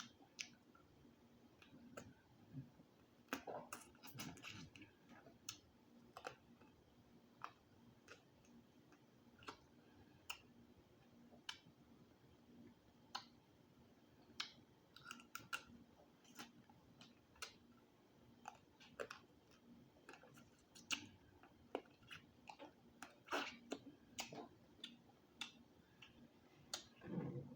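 Quiet eating sounds from a close microphone: irregular wet smacks and clicks of a person chewing seafood boil.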